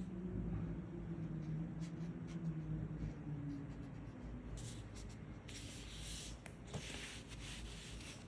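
Soft-tip brush pen stroking across paper, with faint scratches, then a denser rustle of the paper for about two seconds past the middle. A low steady hum sits under the first half.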